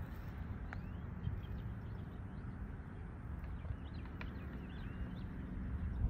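Outdoor field ambience: a steady low rumble of wind on the microphone, with faint, scattered short bird chirps.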